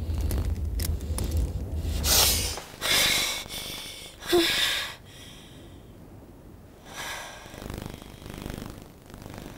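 A woman gasping awake: three sharp, loud breaths in quick succession, then two slower, quieter breaths. A low rumble under the first gasps cuts off about two and a half seconds in.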